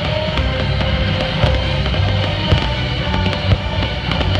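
Dramatic fireworks-show soundtrack music played loud, with repeated sharp pops and bangs of aerial firework shells bursting through it.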